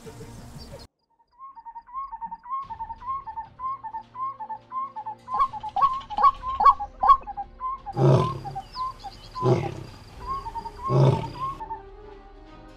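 Three deep growls, a lion's by their sound, come about a second and a half apart near the end. Under them runs a string of short, repeated chirping notes, about two a second.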